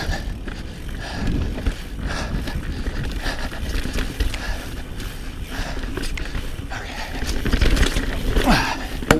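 Pivot Switchblade full-suspension mountain bike on Maxxis High Roller tyres riding fast over tree roots: a steady run of clattering knocks and rattles from tyres and frame over a constant low rumble.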